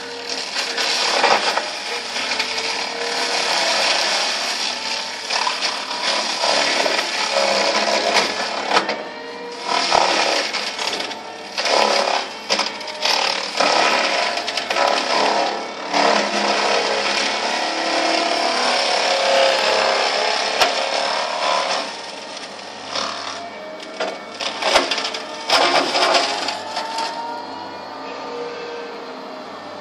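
Excavator-mounted mulcher head shredding shrubs and brush: a loud, rough grinding full of crackling snaps as the wood is chewed up. It swells and eases off several times as the head is pushed in and lifted.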